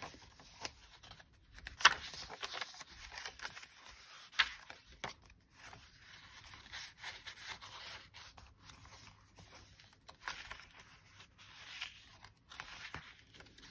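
Paper pages of a handmade junk journal being turned and handled: soft rustling and swishing of paper, with a couple of sharper flicks as pages are turned.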